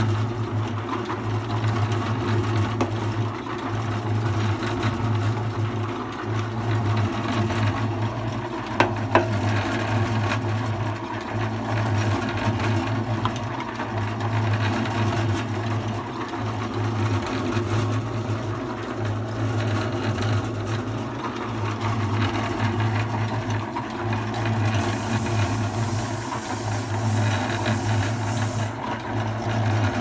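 Small electric concrete mixer running, its drum turning with a steady, slightly pulsing motor hum. A single sharp click about nine seconds in.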